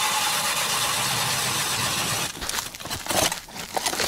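A hand ice auger boring through lake ice, with a steady grinding scrape for about two seconds. After that come irregular crunches and scrapes of ice and slush as the auger is worked and lifted out of the hole.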